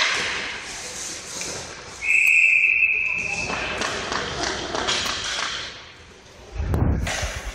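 Hockey referee's whistle: one shrill blast about a second long, about two seconds in, stopping play. Around it are rink noise and voices, and a low thud comes near the end.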